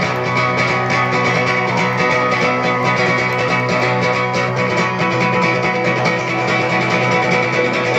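A live band playing, its guitars sounding a steady chord pattern without singing.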